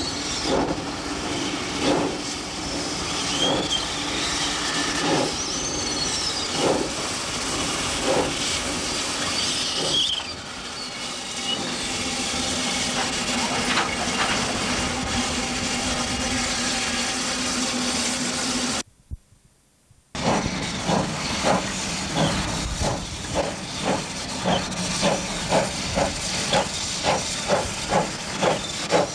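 Baldwin 2-6-0 steam locomotive No.1411 working with a steady hiss of steam: slow exhaust chuffs about every second and a half at first, then a stretch of plain steam hiss. After a brief break the chuffs come quicker and even, about two a second, as the engine works harder.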